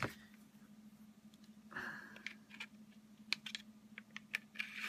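Light metallic clicks and handling noise from a Smith & Wesson M&P Shield 9mm pistol's frame and slide as the slide is fitted back onto the frame during reassembly. The clicks are faint and come more often near the end.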